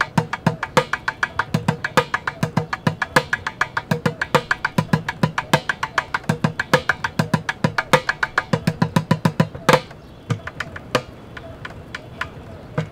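Bucket drum played with drumsticks in a fast hip-hop beat: rapid sharp stick clicks with low hits on the bucket mixed in. A loud stroke comes a little before ten seconds in, and after it the playing thins to scattered strokes.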